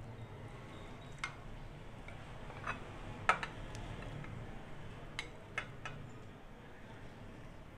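A metal spoon clinks against a glass baking dish and a plate as baked macaroni is scooped out and served. There are about six light, sharp clinks, the loudest about three seconds in, over a low steady hum.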